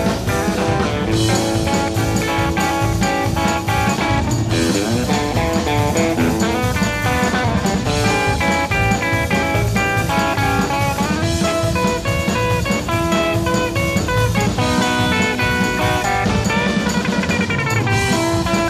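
Live rock-and-roll band playing an instrumental break, a guitar taking the lead with runs of quick notes over drums and bass.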